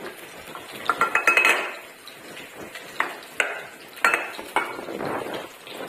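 Stainless steel bowl clinking and clattering as it is handled, with several knocks spread through, a couple of them ringing briefly.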